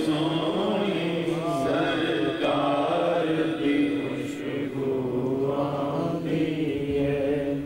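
A man's voice chanting Punjabi Sufi devotional verse in long, drawn-out held notes.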